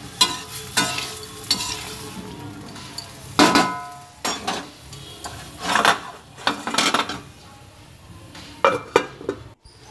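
Spatula scraping and knocking against a kadai as tomato chunks are stirred, in irregular strokes with a brief ringing from the pan on the hardest ones, over a light sizzle of the tomatoes frying in a little oil.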